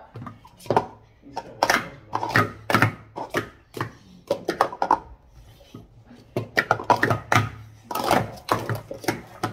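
Plastic sport-stacking cups clacking and sliding together as they are rapidly stacked up into pyramids and brought back down on a mat, in quick runs of taps with short pauses between.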